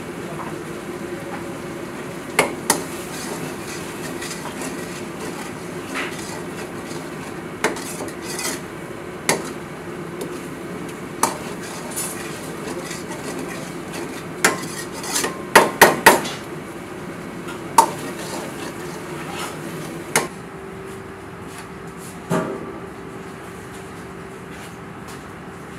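Metal ladle knocking and scraping against a large kadai (wok) while stirring a thick chicken gravy: irregular sharp clanks, with a quick run of four or five knocks about two-thirds of the way through, over a steady kitchen hum.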